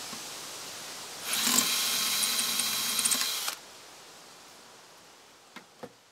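Power drill driving a screw into a concrete block: the motor runs with a whine for about two seconds, then stops abruptly. A few faint clicks follow near the end.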